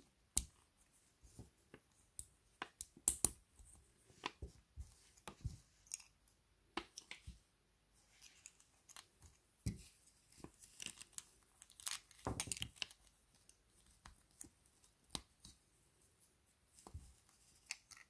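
Small Playmobil plastic parts being handled and fitted together: scattered light clicks and taps as a toy burger and tray are pressed into a figure's hands.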